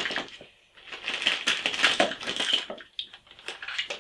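Plastic packaging crinkling and rustling as it is handled, then a few light clicks and knocks of hard plastic near the end.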